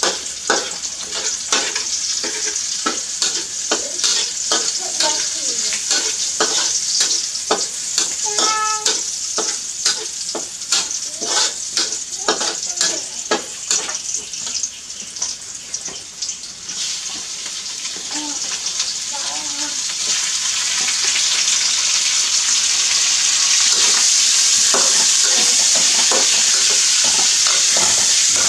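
Metal ladle scraping and clicking against a steel wok on a gas burner, with light sizzling. From about two-thirds of the way through, a steady, louder sizzle builds and holds as food fries in hot oil while it is stirred.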